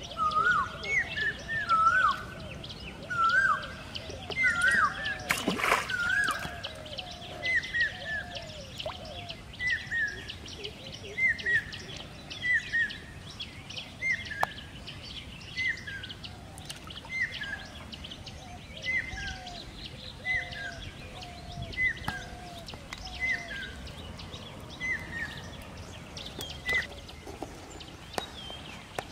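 A bird calling over and over outdoors, a short hooked note with a lower note under it, repeated about once every second and a half. There is one sharp knock about five seconds in.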